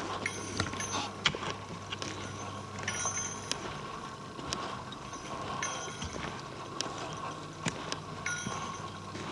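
Footsteps of a person walking a woodland trail: irregular crunches and snaps underfoot, over a steady faint hum.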